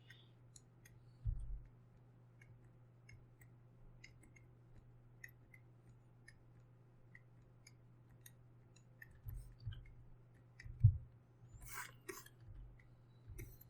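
Faint, scattered clicking from computer input at the desk while working, over a steady low hum. There are a few dull low thumps, the loudest about 11 seconds in, and two short rustling noises near the end.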